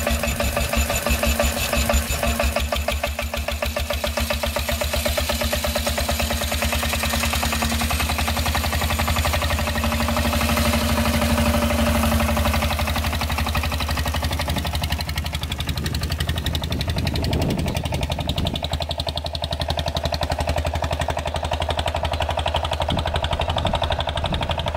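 Deutz diesel engine of a custom motorcycle running with a rapid, even diesel clatter. In the second half the bike pulls away and rides off, still clattering.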